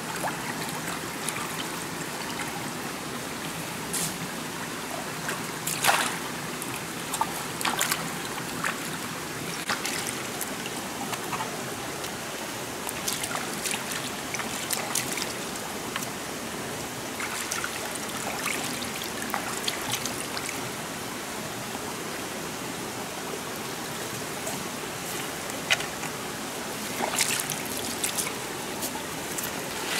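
Shallow stream running steadily, with scattered sharp splashes and sloshes as pieces of fish are rinsed by hand in the water, a cluster of them near the end.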